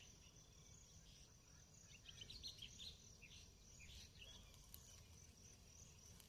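Faint natural ambience: a steady high insect drone, with scattered short bird chirps for a couple of seconds from about two seconds in, over a low rumble.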